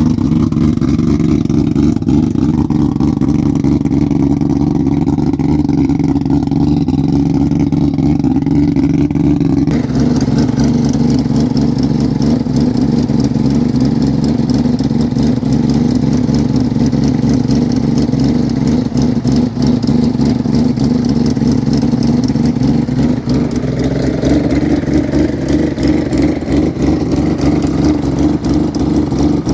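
Loud car engine running steadily with a fixed deep pitch; the sound changes abruptly about ten seconds in, and the engine note rises in pitch near the end as it is revved.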